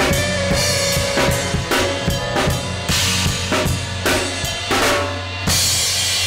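Acoustic drum kit playing a steady rock beat, kick and snare hits about twice a second, over a rock backing track. About five and a half seconds in a cymbal crash rings out.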